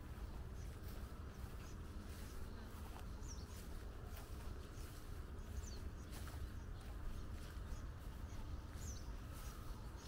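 Outdoor ambience: a low steady rumble of wind on the microphone, with small birds chirping faintly and high up, three sharper gliding chirps standing out about a third of the way in, just past the middle, and near the end.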